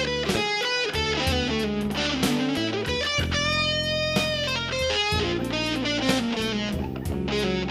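Jazz-blues band music with electric guitar up front over bass and drums, a quick run of notes broken by one long held note about three seconds in.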